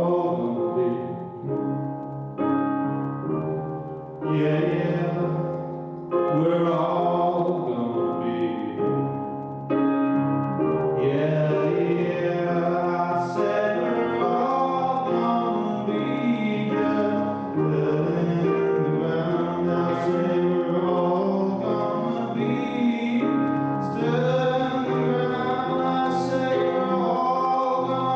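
Live song performance: singing with instrumental accompaniment, quieter for the first several seconds and then fuller and steady.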